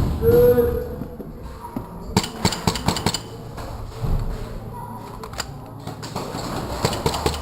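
Airsoft gunfire and BB hits: irregular sharp clacks, bunched in a quick cluster about two seconds in and scattered again near the end, with a brief shout near the start.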